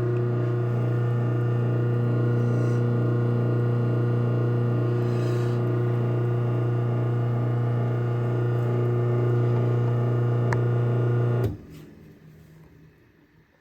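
Craftsman 1/2 hp chain-drive garage door opener (model 139.53930DM) running as it closes the door, a steady motor hum. A single click comes shortly before it stops abruptly about eleven seconds in.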